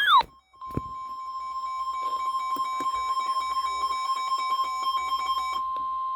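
NOAA Weather Radio's long, steady single-pitch warning alarm tone, which starts about half a second in and heralds a new severe thunderstorm warning. The tail of a wailing, up-and-down siren cuts off at the very start.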